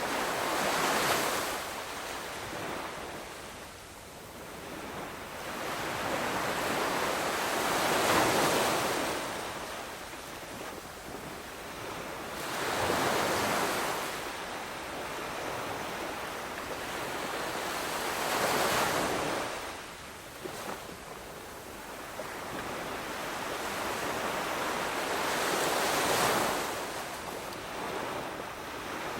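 Sea waves breaking and washing up a shore, each surge swelling and fading away, about every five to seven seconds.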